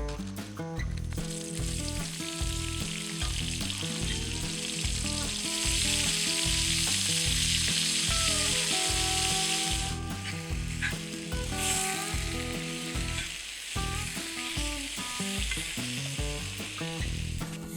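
Food frying in a hot pan: a steady sizzle that swells in the middle and drops away for a moment about ten seconds in. Background music with a steady beat plays underneath.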